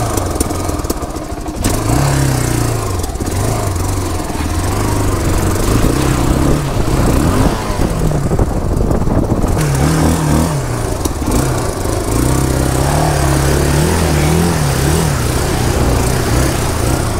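Trail motorcycle engine running under way, its revs repeatedly rising and falling as the rider works the throttle.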